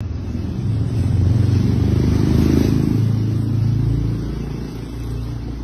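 A motor vehicle passing on the street: a low engine rumble that swells over the first few seconds, peaks with a brief hiss, then fades.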